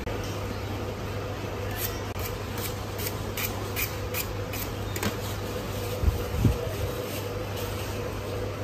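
Two large kitchen knives rubbed blade against blade in quick sharpening strokes, about ten scrapes between two and five seconds in. A steady electric fan hum runs underneath.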